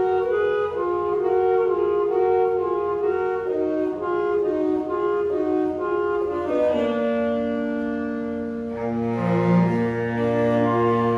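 A woodwind ensemble playing: a melody moving in steps over held chords, with a low bass note coming in about two-thirds of the way through.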